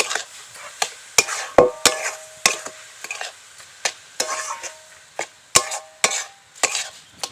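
A spatula scraping and knocking against a kadai as grated coconut and sugar are stirred for a sweet filling, in irregular strokes about once or twice a second, some leaving a short metallic ring, over a faint sizzle from the pan.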